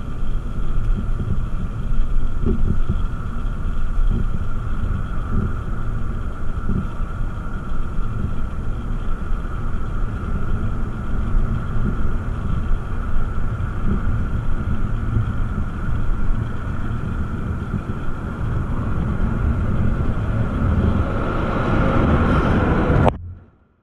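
Small engine running steadily under way, with a constant whine and wind rumbling on the microphone; the sound cuts off suddenly near the end.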